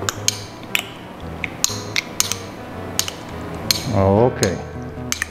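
Metal spoon clinking and scraping against a small ceramic bowl while mixing chicken pieces in their marinade, in irregular sharp clinks about two a second. Soft background music runs underneath.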